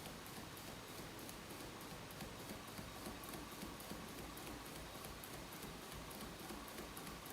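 Small hot-air (Rider-Ericsson type) engine fan running, driven by a flame, with a steady, quiet rhythmic ticking of about four clicks a second.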